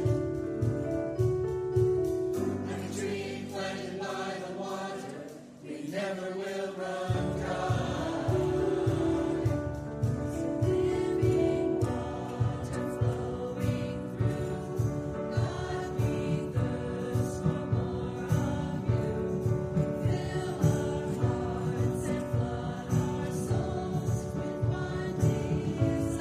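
Mixed church choir singing an anthem over instrumental accompaniment with a steady beat. The low accompaniment drops out for a few seconds about two seconds in, then returns.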